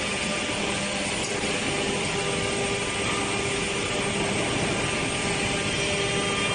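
Woodworking production machinery running steadily: an even mechanical noise with a faint steady hum underneath.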